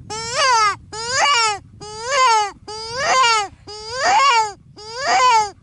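Predator call playing a prey distress sound to lure coyotes: six loud, wailing cries in a row, about one a second, each bending up and then falling in pitch.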